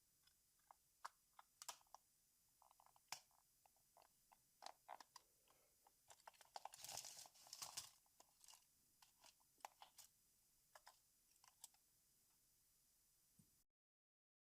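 Faint, scattered clicks and rattles of the opened plastic tape-measure case and its small parts being handled, with a denser run of crackly clicking and scraping about halfway through. The sound cuts off to dead silence near the end.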